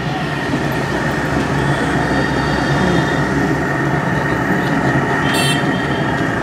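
Steady din of a busy street, with a brief high-pitched squeal about five seconds in.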